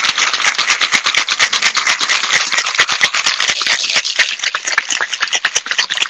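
Ice rattling hard inside metal cocktail shakers being shaken vigorously: a fast, steady clatter of ice against metal.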